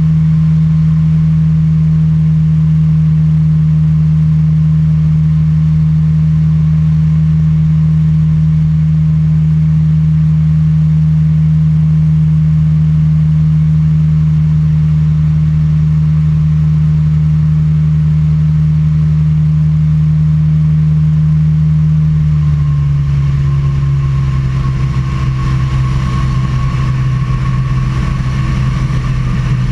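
Weight-shift trike microlight's engine and pusher propeller in flight, a loud, steady drone. About three quarters of the way through, the note drops in pitch and stays lower and a little rougher.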